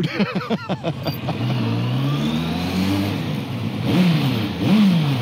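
Motorcycle engine accelerating: its pitch climbs steadily, drops back about three seconds in as a gear change, then rises and falls twice more in short swells near the end.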